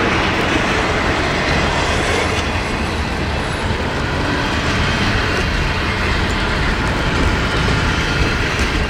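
Double-stack intermodal container cars of a freight train rolling past, a steady loud rumble of wheels on the rails.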